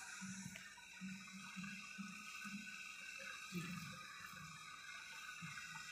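Faint steady hiss of running water, with soft low murmurs coming and going underneath.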